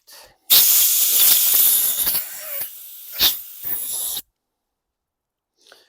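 Pressurised spray hissing through a lawn mower carburetor's jets during cleaning: one loud hiss of about three and a half seconds that eases off partway, with a sharp click near the end, then cuts off suddenly.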